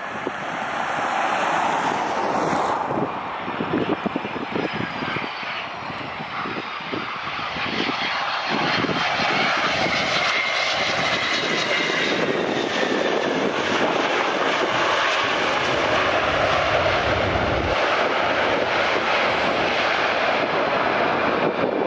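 Boeing 717 jet engines passing low on landing, their whine falling in pitch in the first few seconds. About eight seconds in, after touchdown, the engine noise swells into a louder, steady rush that holds through the rollout, typical of reverse thrust.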